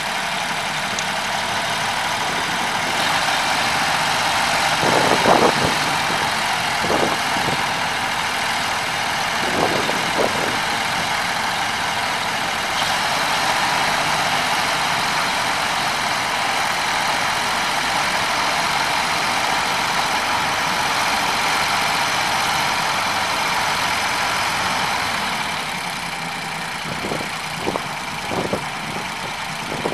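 Ford eight-cylinder gasoline engine of a 1973 Ford 850 grain truck idling steadily. A few short knocks sound over it, about five, seven and ten seconds in and several times near the end.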